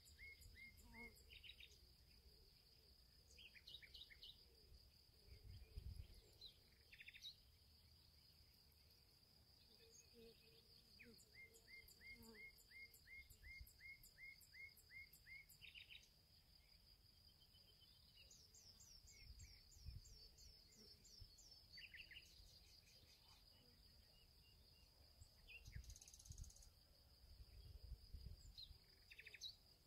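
Faint bog ambience: birds calling in short chirps, some in quick runs of about four a second, over a steady high-pitched tone, with a few soft low thumps.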